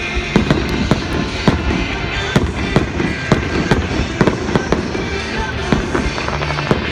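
Fireworks show: many aerial shells bursting in quick succession, a rapid string of sharp bangs and crackles several a second, with music playing along.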